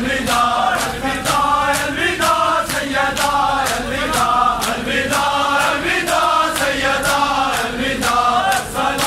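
Large crowd of men chanting a Shia noha in unison, with sharp rhythmic chest-beating (matam) slaps about two a second keeping the beat.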